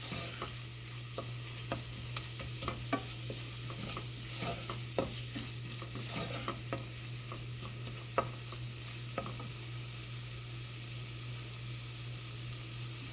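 A tomato-based curry masala with freshly added spices sizzling in a pan while a utensil stirs it, clicking and scraping against the pan. The clicks thin out after about nine seconds, and a steady low hum runs underneath.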